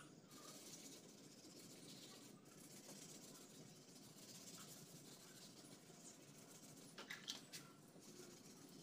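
Faint scratching of 400-grit sandpaper on a hand-held sanding block rubbed over a plastic car bumper, sanding down a scratch to level it, with a couple of louder strokes about seven seconds in.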